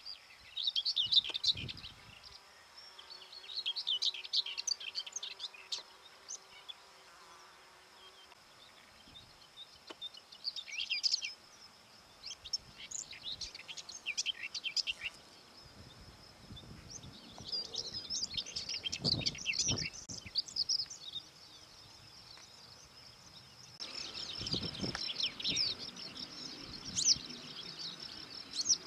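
Small songbirds singing short bursts of quick, high twittering phrases every few seconds. A thin, steady high-pitched whine runs beneath them.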